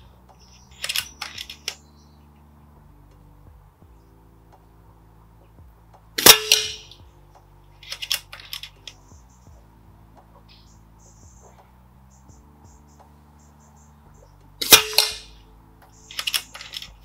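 Norica Viriatus .22 pre-charged pneumatic air rifle firing two shots about eight and a half seconds apart, each a sharp crack. A second or two after each shot comes a short run of quieter clicks as the action is cycled to chamber the next pellet from the magazine.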